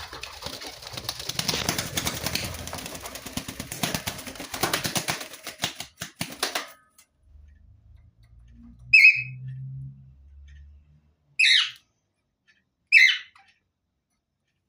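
A bird's wings flapping rapidly for about seven seconds, then three short, sharp bird calls a second or two apart.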